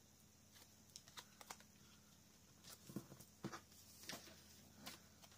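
Faint, scattered taps and light paper handling: a paper sunflower embellishment and its scalloped piece being handled and pressed onto a scrapbook layout, over a faint low hum.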